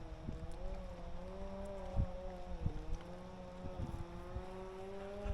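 Electric trolling motor running with a steady whine whose pitch drifts slightly up and down, while wind buffets the microphone in low thumps.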